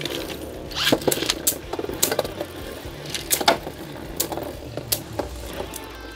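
Two Beyblade Burst spinning tops, the Infinite Achilles prototype combo and Lucifer, whirring and scraping across a plastic stadium floor, with repeated sharp clacks as they strike.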